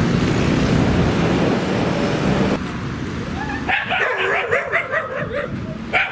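Street traffic with an engine running, which cuts off about two and a half seconds in. Then, from a little past halfway, a dog whines and yelps in high, wavering cries that rise and fall in pitch.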